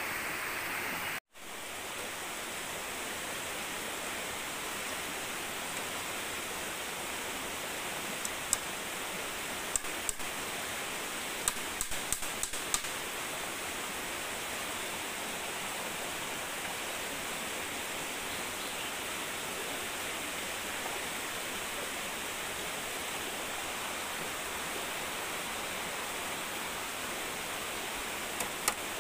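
Steady rush of a nearby river, with scattered sharp knocks of a hammer on bamboo poles: a short cluster about twelve seconds in and several more near the end.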